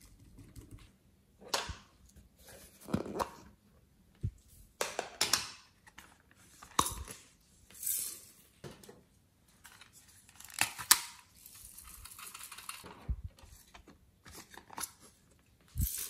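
Plastic clay piping bags and cups handled and squeezed over a glass dish of slime: a dozen or so irregular crinkles, clicks and taps, with a longer rustling stretch a little past the middle.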